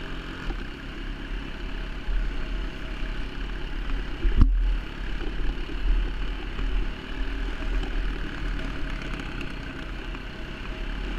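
Dirt bike engine running steadily at low speed while riding a dirt track, with one sharp thump about four seconds in.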